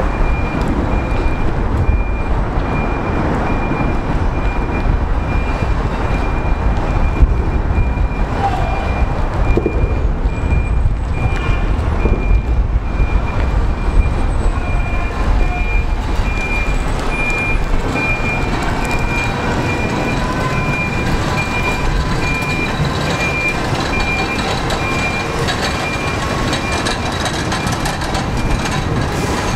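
Railcar mover's engine running with a steady low rumble as it slowly tows retired Budd R32 subway cars along street track, a high warning beeper sounding over it. In the second half the steel R32 cars roll past on the rails.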